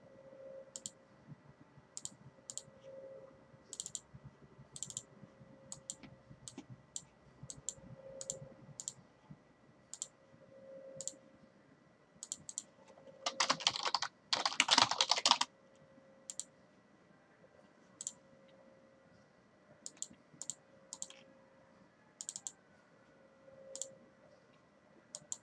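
Computer keyboard typing and mouse clicks: scattered single clicks, with a short burst of fast keystrokes about halfway through.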